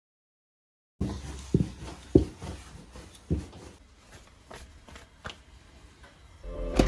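Bread dough being handled and slapped on a floured board: three dull thumps in quick succession, then a few lighter taps. The first second is silent, and music with a throbbing beat comes in near the end.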